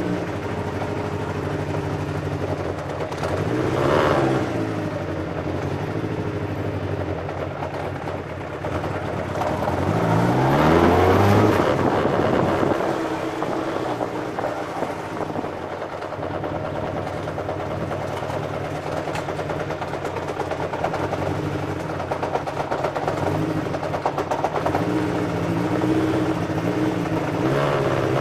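Kawasaki GPZ600R's inline-four engine running at low revs while the motorcycle rides slowly, with the revs rising briefly about four seconds in, again more strongly around eleven seconds, and a few smaller blips near the end.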